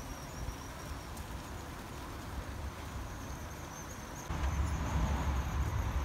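Seaside outdoor ambience: insects chirring in one steady high trill over a faint hiss. A low rumble, like wind on the microphone, comes in suddenly about four seconds in.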